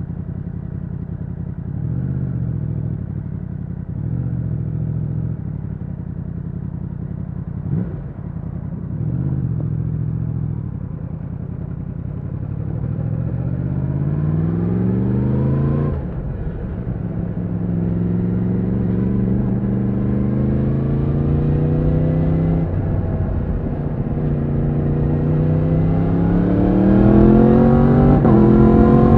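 Yamaha MT-10's crossplane inline-four engine pulling away at low speed with a few light throttle openings, then accelerating hard through the gears. The pitch rises and drops suddenly twice, about halfway through and again about two-thirds through, as it shifts up with the quickshifter.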